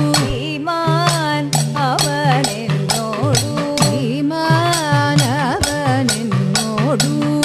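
Kathakali padam sung by a woman in raga Darbar, the melody sliding and ornamented over a steady held pitch. Chengila gong and ilathalam cymbals mark the beat with regular metallic strokes, with edakka and maddalam drums accompanying.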